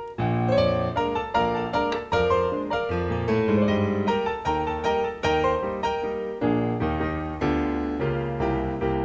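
Background piano music, notes struck at a steady, even pace over a low bass line.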